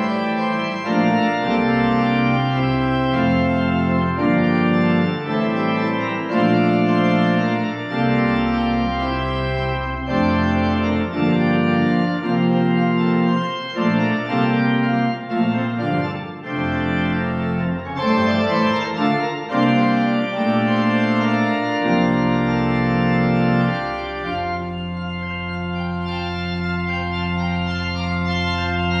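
Organ music: a slow run of sustained chords over moving bass notes, changing every second or two, settling about four-fifths of the way through into one long, slightly quieter held chord.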